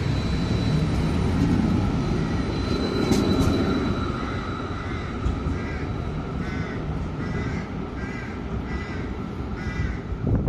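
A tram rolling past with a low rumble and a steady high whine, loudest in the first few seconds. From about halfway, a bird calls in short repeated notes, about two a second.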